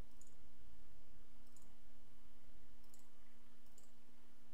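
Faint computer mouse clicks, four in all, about a second apart, over a steady low electrical hum and microphone hiss.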